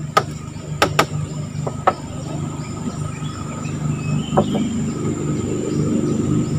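Small boat engine running steadily and getting gradually louder as the wooden longboat travels. There are a few sharp knocks in the first two seconds and one more about four seconds in, and insects keep up a thin, steady high buzz.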